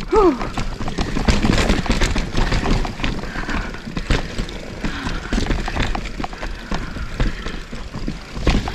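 Mountain bike riding over a rocky, rooty trail: a dense, irregular clatter of knocks and rattles from the tyres, chain and frame, over a steady low rumble. A short falling vocal sound comes at the very start.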